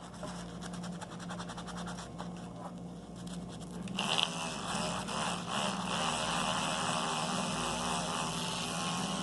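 Toothbrush scrubbing toothpaste over a watch's scratched glass lens to polish out the scratches: rapid scratchy strokes that grow louder and denser about four seconds in.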